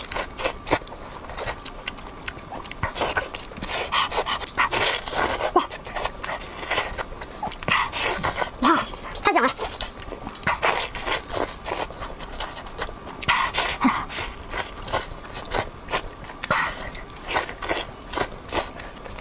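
Close-miked eating sounds: wet chewing, lip-smacking and sucking on sticky, sauce-covered meat, with many short smacks and clicks and quick breaths between mouthfuls.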